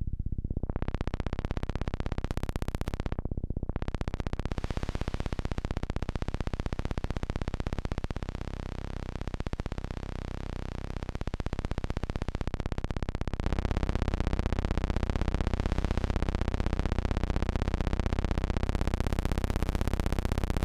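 Roland Juno-106 analog synthesizer playing a fast stream of repeated pulsing notes while the filter cutoff is swept: the tone opens up bright right away, closes down briefly about three seconds in, then reopens. About two-thirds of the way through it gets louder, with a wavering, warbling pitch pattern.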